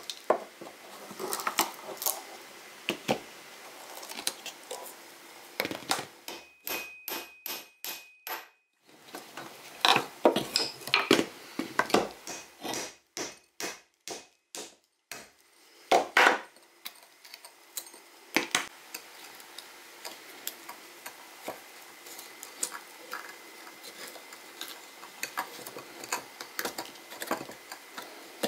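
Hammer blows on a steel tool wedged into an old wooden cleaver handle, splitting the wood off the metal tang: sharp knocks with wood cracking and metal clinks, including two runs of quick, even strikes. Lighter clicking and scraping follow as the split pieces of wood are worked off by hand.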